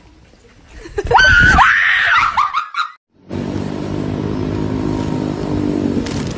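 A person screams shrilly for nearly two seconds, starting about a second in. After a sudden cut there is steady background noise with a faint low hum.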